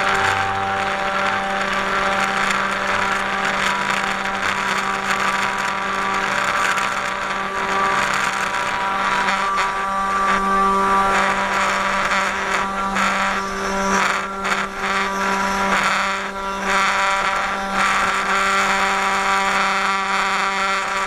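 500 W spindle of a 3018 desktop CNC router running with a steady whine while its end mill cuts a slot in wood, the cutting heard as a continuous rasp over the whine.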